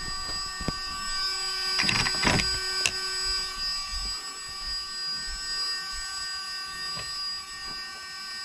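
Losi Promoto MX RC dirt bike powered up, its electric stabilising flywheel spinning with a steady high whine. A few short noisy knocks and rustles come about two seconds in.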